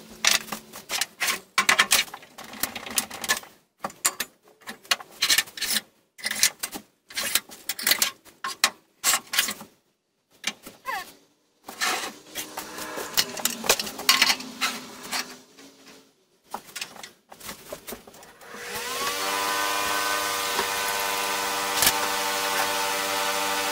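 Wood blocks and the table saw's rip fence being handled on the saw's metal table: a long run of irregular knocks and clacks. About three-quarters of the way in, the table saw's motor switches on, its pitch rising as the blade spins up, then settles into a steady whine.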